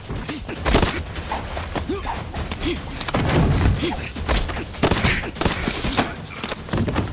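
A rapid run of sharp hits and thuds, the punches and body blows of a hand-to-hand fight.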